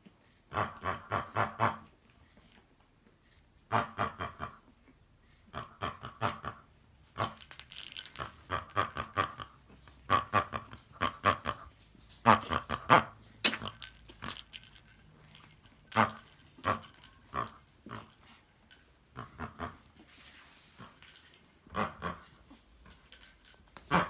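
Pug puppies at play: repeated short bursts of quick yips and growls, with rustling and scuffling between them.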